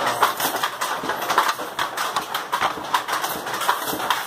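Wooden handloom being worked: an irregular run of sharp clacks and knocks, several a second.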